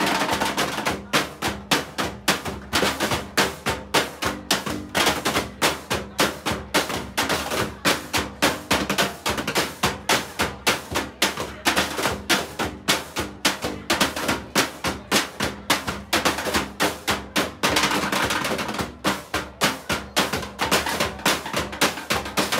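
Junk percussion: plastic barrels and other scrap objects beaten with drumsticks in a fast, steady rhythm, about four or five strikes a second, with a roll about eighteen seconds in.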